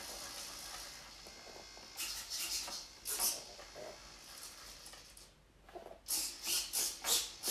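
Aileron and flap servos in a Multiplex Lentus RC glider's wing whirring in short bursts as the transmitter stick is moved, driving the ailerons up for the crocodile (butterfly) brake setting. There are a couple of bursts about two to three seconds in, then a quick run of them near the end.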